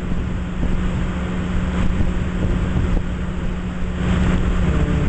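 Excavator's diesel engine running steadily, a constant low hum and rumble.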